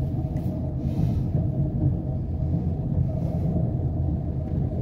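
Steady low rumble of a vehicle driving, heard from inside its cab: engine and running noise with no sharp events.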